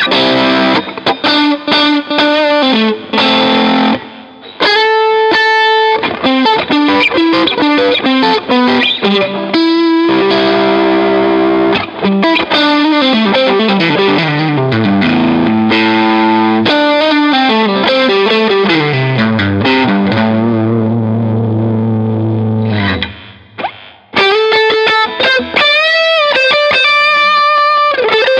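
Fender Custom Shop 1961 Stratocaster electric guitar played with a distorted tone: single-note lead lines with held and bent notes and falling runs. It breaks off briefly about 23 seconds in, then starts again.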